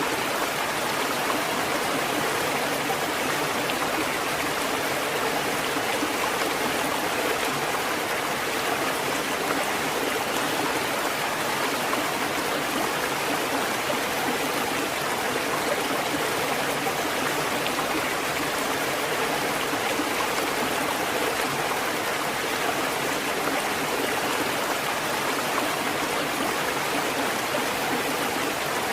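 Water fountain running steadily, an even rush of splashing water with no breaks or knocks.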